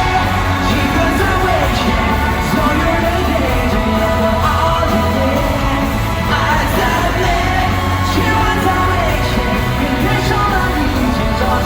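Live pop-rock concert music: a male vocalist sings loudly over a full band with a steady drum beat, heard through the amplified PA system of a large venue.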